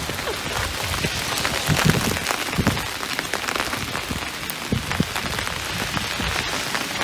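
Small hail falling hard: a dense, steady patter of ice pellets hitting wet asphalt and umbrellas.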